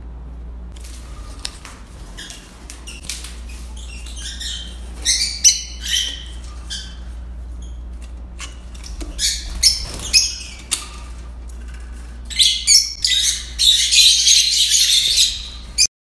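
Caged lovebirds chirping and squawking in shrill bursts, with a dense run of calls near the end, over a steady low hum.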